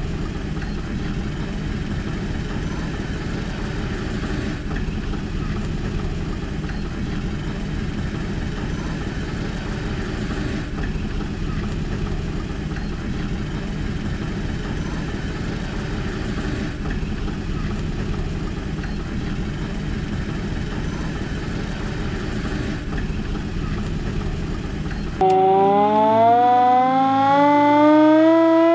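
A Żuk fire van's engine running steadily at idle. Near the end a hand-cranked mechanical siren takes over, louder, its wail climbing steadily in pitch as it is wound up.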